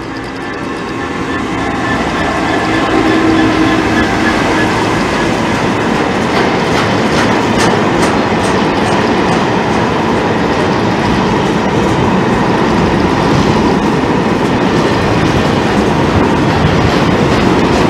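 Class 66 diesel locomotive and its train passing close by: the rumble builds over the first few seconds, then holds as a steady, loud run of wheel and rail noise with clickety-clack over the rail joints.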